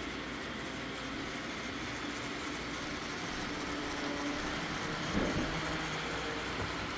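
Model steam locomotive with passenger cars running along the layout track: a steady running noise with a few faint held tones, and a brief louder swell about five seconds in.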